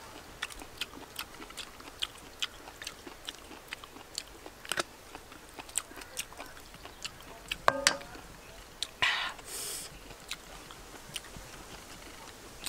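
Close-up eating sounds of a person chewing cooked fish: many small wet lip smacks and chewing clicks, with a short breathy puff of air about nine seconds in.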